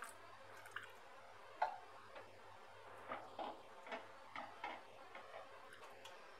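Wooden spatula stirring vermicelli and vegetables in water in a metal pot, giving light irregular taps and knocks against the pot, the loudest about a second and a half in.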